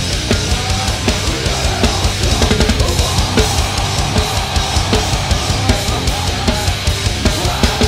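Full drum kit played in a fast heavy metal groove with rapid bass drum strokes, over a heavy metal backing track. The snare is a 13-by-7.5-inch Sonor Deluxe Edition, just fitted with extra bored-out air vents and die-cast hoops, being played to hear its sound.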